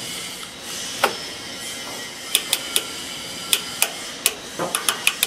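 Rotary control dial on a stainless steel agitator's control panel being turned by hand: about a dozen sharp detent clicks at uneven spacing, coming faster near the end, over a steady background noise.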